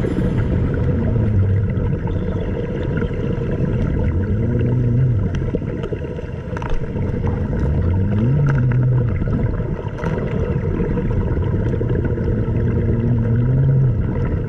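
Muffled low drone of a boat engine heard underwater, its pitch rising and falling every few seconds, with a few faint clicks.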